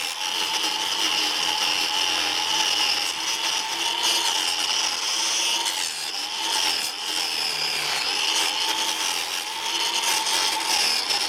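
Angle grinder fitted with a chainsaw-chain cutting disc, running continuously and cutting into wood. It makes a steady high whine over a rasping noise, and the pitch wavers a little as the chain bites.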